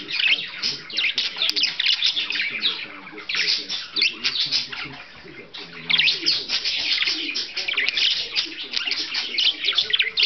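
Budgerigar warbling and chattering: a fast, continuous run of chirps, squeaks and buzzy notes, easing off briefly near 3 s and again around 5 s before picking up.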